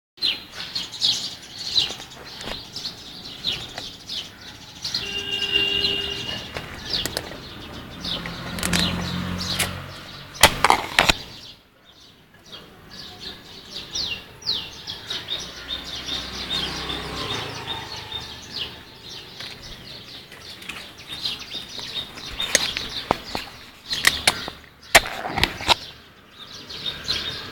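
Small birds chirping over and over in the early morning, with a few sharp knocks about a third of the way in and again near the end.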